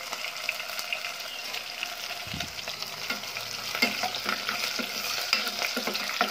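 Garlic cloves, with mustard seeds and black pepper, frying in hot oil in a pan: a steady sizzle with scattered crackles. From about four seconds in, a spatula stirs and scrapes through them.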